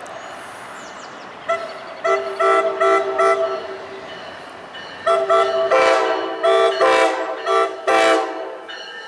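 MARC commuter train cab car's multi-chime air horn sounded in a rapid string of short toots, a chord of several tones at once. There are two clusters of blasts, one starting about a second and a half in and the next about five seconds in, over the steady running noise of the train.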